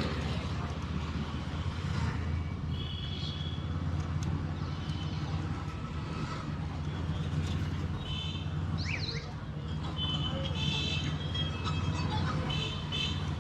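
100cc motorcycle riding through traffic, its engine and road noise a steady low hum picked up by a mic inside the rider's helmet. Short high horn toots from other vehicles sound several times, and there is a brief gliding chirp about nine seconds in.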